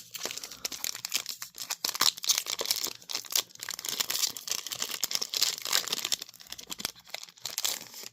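Foil Yu-Gi-Oh booster pack wrapper being crinkled and torn open by hand: a dense, continuous crackling that starts abruptly.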